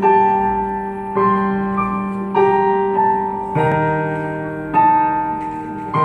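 Slow keyboard music: sustained chords, a new one struck about every second and a bit.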